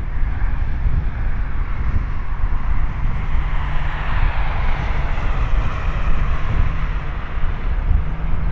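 Twin jet engines of a Boeing 777-200ER airliner on final approach to land. The engine noise swells to its loudest about halfway through, then eases, over a constant low rumble of wind on the microphone.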